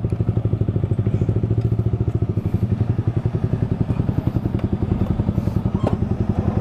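Yamaha motorcycle engine idling with a rapid, even pulse that holds steady throughout.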